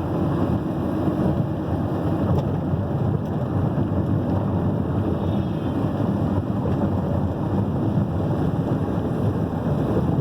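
Steady low rumble of a vehicle travelling fast: tyre and wind noise, with wind buffeting the microphone.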